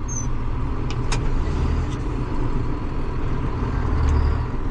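Farm tractor engine running steadily with a low rumble, which swells a little for a moment near the end.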